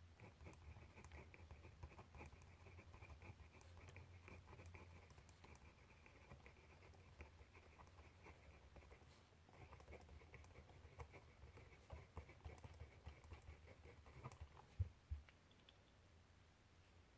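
Faint scratching of writing by hand on paper, in stretches with a pause in the middle, dotted with small taps, and one sharper knock near the end.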